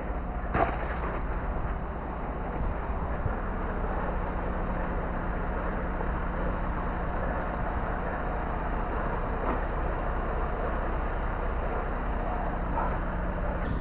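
Concrete mixer truck's engine running steadily, with a sharp knock about half a second in and a couple of fainter clicks later.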